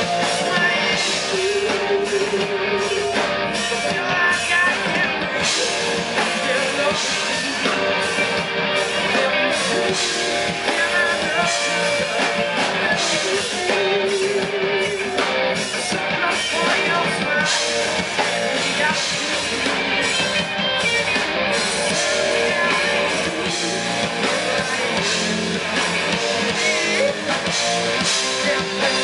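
Live rock band playing: electric guitars, bass and drum kit, with a lead vocal over them.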